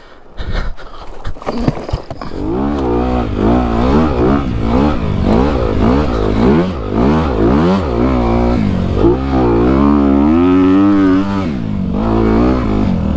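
A few knocks and scrapes, then a Honda CRF250 dirt bike's single-cylinder four-stroke engine pulling up a sandy climb. Its pitch climbs and drops over and over as the throttle is opened and rolled off through the gears, then holds high for a couple of seconds near the end before falling away.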